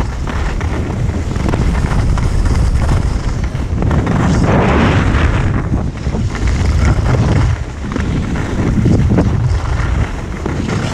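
Wind buffeting the microphone on a skier running down a groomed piste, under the hiss and scrape of skis on packed snow. The scraping hiss grows louder about four to five seconds in.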